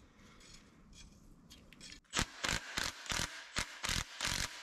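Cordless ratchet run in about eight short bursts, roughly three a second, on a bolt at the front of an engine, starting about two seconds in.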